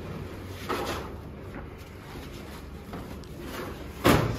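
Sheet-metal bonnet of an Eicher tractor being handled and raised, with a light knock about a second in and a loud metal clunk near the end.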